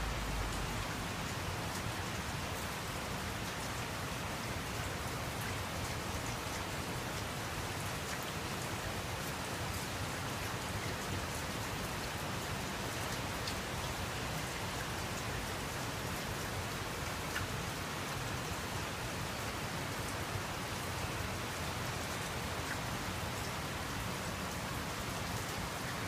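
Very heavy typhoon rain falling steadily: an even hiss of downpour on wet roofs, pavement and balcony, with scattered faint drop ticks.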